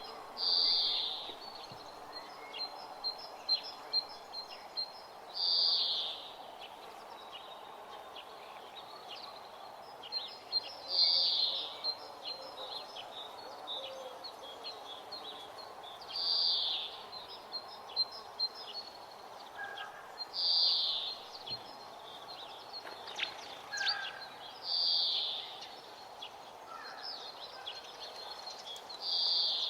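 A bird singing over and over: each phrase is a quick run of high chips ending in a louder, harsher note, repeated about every four to five seconds over a steady background hiss.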